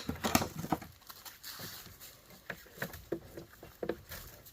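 Scattered light clicks and knocks from cutters working on the line conditioner's thick power cord and the unit being handled.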